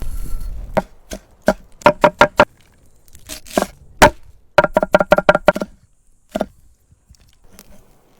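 Knife or cleaver chopping on a chopping board: single sharp strokes, then quick runs of about five to eight strokes, each with a slight ring.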